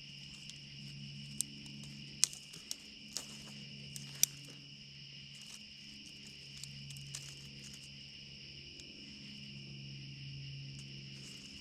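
About six sharp strikes and clicks in the first few seconds from a hand fire starter being struck over a tinder nest, an attempt that does not light it. Crickets and other insects chirp steadily throughout.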